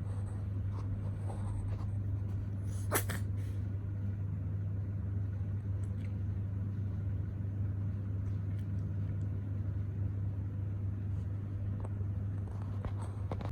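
Steady low hum, with one short sharp sound about three seconds in.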